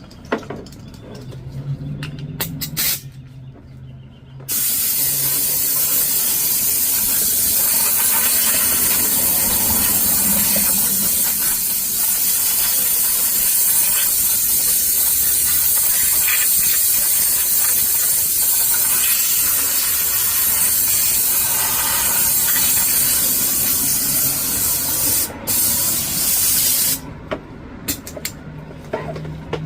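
Loud, steady hiss of a pressurised spray or air jet, starting abruptly a few seconds in, running for about twenty seconds with one brief break near the end, then cutting off.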